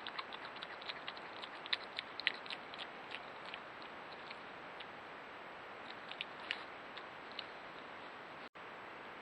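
Steady hiss of a trail camera's microphone with irregular quick clicks and crackles, thickest in the first few seconds and again briefly around six to seven seconds in; the sound cuts out for an instant near the end.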